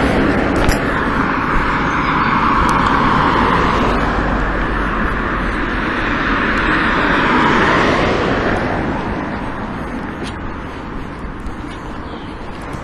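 Road traffic passing close by: a steady rush of tyre and engine noise that stays loud for about eight seconds, then fades away.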